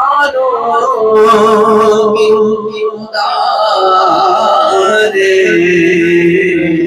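A man's solo voice singing an Urdu naat unaccompanied, in long held, wavering notes, with a brief pause for breath about three seconds in.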